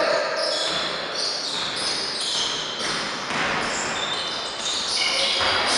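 Basketball game in a large sports hall: sneakers squeaking again and again on the wooden court and a basketball bouncing.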